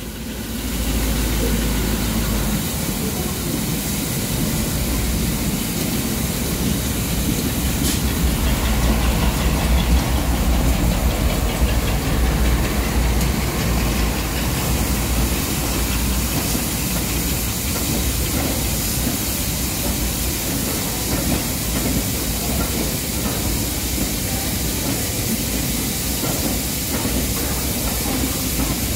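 Heritage passenger train of coaching stock rolling slowly past close by: a continuous rumble of wheels on rails with a deep low drone, heaviest in the first couple of seconds and again from about eight to fourteen seconds in.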